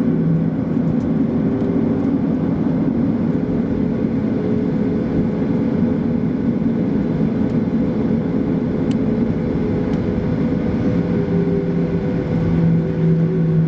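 Steady cabin noise of a Boeing 737-800's CFM56-7B engines, a constant rush with a steady low hum and several held tones, unchanging in level.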